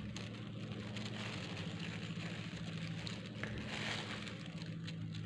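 Wet flour batter squelching and a thin plastic glove crinkling as an egg is coated by hand and spoon: a faint crackly patter that is busiest a little after halfway. A steady low hum runs under it.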